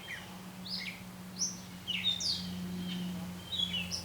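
Songbirds chirping, several short sweeping calls a second, over a steady low hum.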